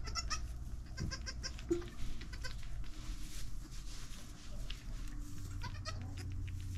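A goat doe licking her newborn kids clean in straw bedding: a run of small wet licking clicks and rustling, with a couple of short, soft goat calls, one about two seconds in and one near the end.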